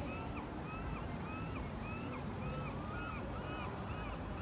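Outdoor city ambience: a steady low rumble, with a short high chirp repeating evenly about twice a second throughout.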